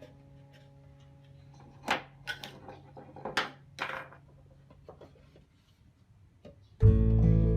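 A handful of sharp wooden knocks and clicks, a wooden pen box's swing-out trays being opened and closed. Near the end, strummed acoustic guitar music starts loudly.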